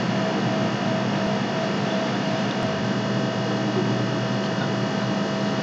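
Steady background hum and hiss with a few constant low tones, unchanging throughout; no separate event stands out.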